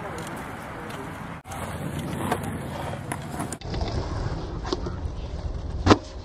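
Kick scooter wheels rolling over a concrete skatepark, with a low rumble and one sharp clack from the scooter near the end.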